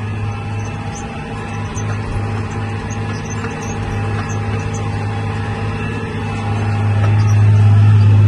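John Deere 8410 tractor's six-cylinder diesel engine running steadily under load while pulling an air seeder, heard from inside the cab as a continuous low drone that grows louder near the end.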